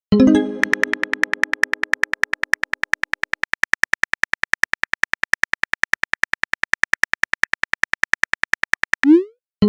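Rapid, even on-screen keyboard typing clicks, about eight a second. A plucked chord rings in at the start and fades over about two seconds, and a short rising whoosh like a message-send sound comes near the end.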